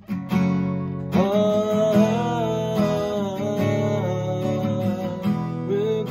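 Steel-string acoustic guitar strummed in steady chords. From about a second in, a voice holds a long wordless note over it, with a shorter one near the end.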